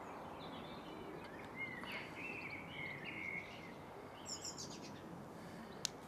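Birds chirping over a steady outdoor background, with several short calls in the first half and a few higher chirps about four seconds in. A single sharp click comes near the end.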